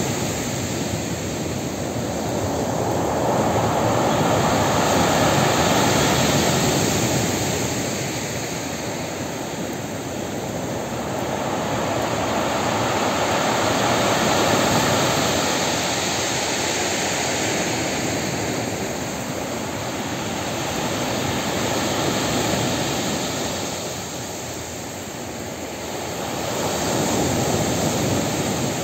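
Storm surf breaking on a pebble beach: a steady rush of churning water that swells and eases in slow surges as each set of waves breaks and washes up the shore, about four surges over the stretch.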